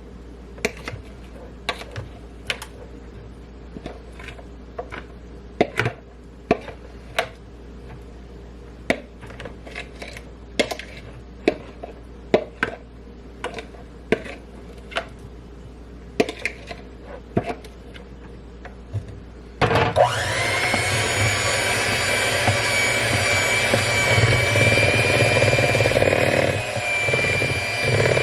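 Irregular light clicks and knocks, then about two-thirds of the way in an electric stand mixer starts up and runs steadily with a constant whine and hum, mixing batter.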